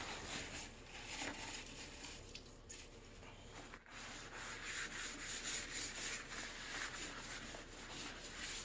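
A damp towel rubbing back and forth over the bare metal bottom panel of a computer case, wiping off rust-removal paste, with a short pause about four seconds in.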